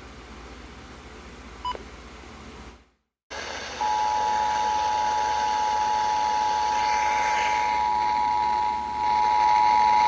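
Faint radio hiss with a small click, a brief dropout to silence about three seconds in, then the Emergency Alert System two-tone attention signal starting about four seconds in and holding steady. The tone announces an emergency alert message.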